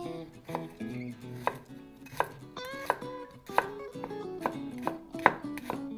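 Kitchen knife slicing a garlic clove on a wooden cutting board: sharp, uneven taps of the blade meeting the board, about one or two a second.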